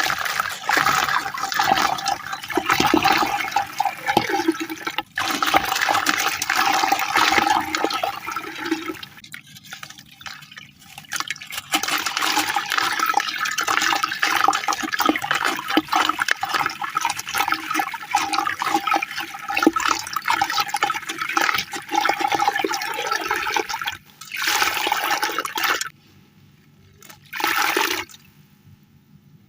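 Chunks of cement and sand-cement being crushed in water: dense wet crackling and crumbling in long spells with short pauses, ending in two short bursts.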